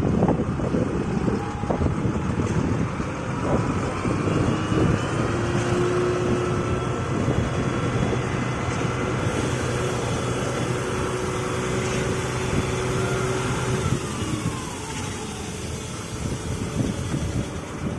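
Construction-site noise dominated by a running engine of a vehicle or machine: a steady hum that drops in pitch and eases off about fourteen seconds in, with a few scattered knocks.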